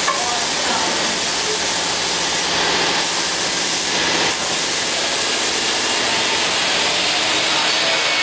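CNC wood-turning lathe running, a steady, even hiss.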